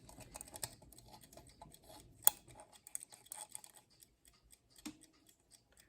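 Faint, irregular small clicks from a Westclox alarm clock being handled as its hands are turned back to 12, with one sharper click a little over two seconds in.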